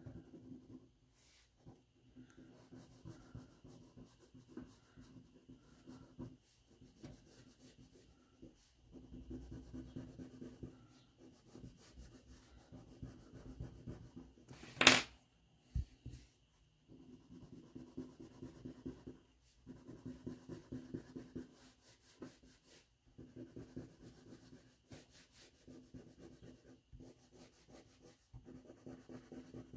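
Crayon being scribbled rapidly back and forth on paper, in runs of a few seconds with short pauses between them. One sharp knock about halfway through is the loudest sound.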